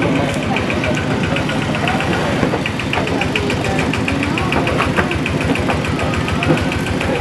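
Engine idling steadily, with a regular knocking clatter of about six ticks a second over its low running note.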